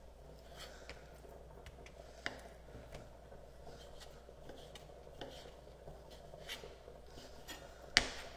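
Chef's knife cutting raw chicken breast into cubes on a plastic cutting board: faint, irregular taps and slicing of the blade against the board. There is a sharper tap a couple of seconds in and a loud knock near the end.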